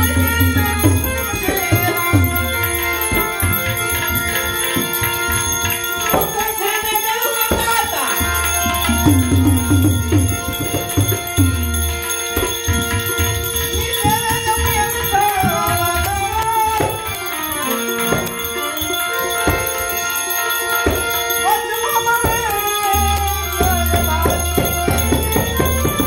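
Live devotional folk music: a harmonium holding chords, tabla strokes and small brass hand cymbals (manjira) ringing in time. A man's voice sings over it, clearest in the middle of the stretch.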